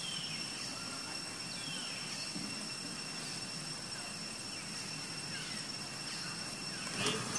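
Outdoor ambience: a steady, high, thin insect drone over a low background rumble. A few faint chirping calls fall in pitch near the start and about two seconds in, and a short sharp click comes near the end.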